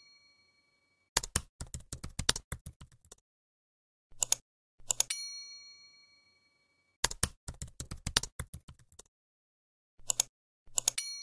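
End-screen subscribe animation sound effects: a pair of mouse clicks followed by a ringing notification ding that fades out, then a quick run of keyboard typing clicks. The cycle repeats about every six seconds.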